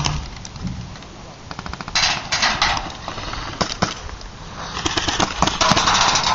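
Airsoft guns firing across the field: a quick run of rapid shots about a second and a half in, then scattered single shots among short bursts of hissy noise.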